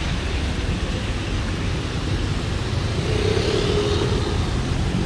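Street traffic: cars and a motorcycle passing on the road make a steady low rumble, with a passing engine's hum standing out for about a second, roughly three seconds in.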